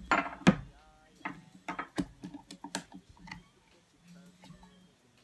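Kitchen utensils clicking and clinking against dishes as sugar is scooped and measured out, a quick series of sharp knocks over about three seconds, the loudest near the start, with a brief ring about a second in.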